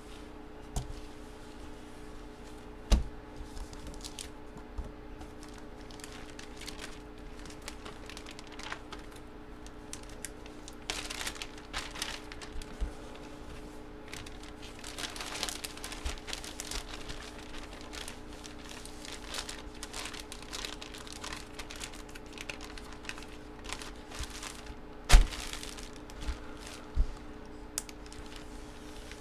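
Trading cards and their plastic packaging being handled: rustling and crinkling with small clicks, and two sharp knocks, one about three seconds in and one near the end.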